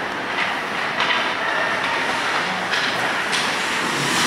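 Ice hockey play on a rink: skate blades scraping and carving on the ice, with a few sharp clacks of sticks and puck, about a second in and again around three seconds.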